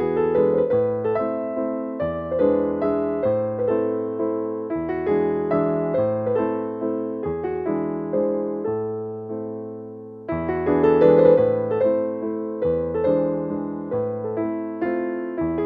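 Background piano music: a gentle melody of struck notes over a bass line. It fades down around eight to ten seconds in, then picks up again.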